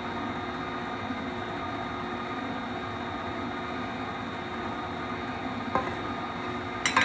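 Pampered Chef stand mixer running steadily with its dough hook turning in bread dough as flour is added. A couple of light knocks near the end as the flour scoop tips into the mixing bowl.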